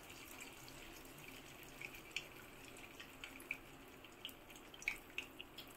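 Ghee heating in a hot pan: faint, irregular little ticks and pops over a low steady hiss.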